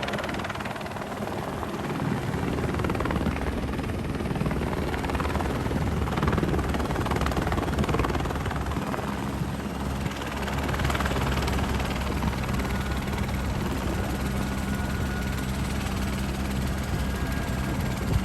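Helicopter running steadily, its rotor and engine drone holding level.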